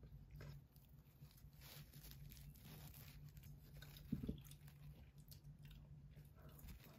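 Faint eating and handling sounds over a low steady hum: soft rustles as a paper tissue is wrapped around a roasted sweet potato, with a single soft bump about four seconds in.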